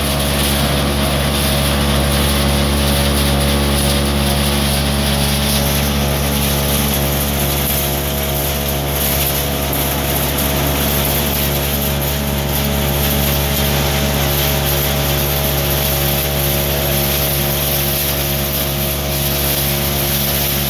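Dodiya almond shelling machine running at a steady speed: an even mechanical hum made of several fixed tones, with no change in speed.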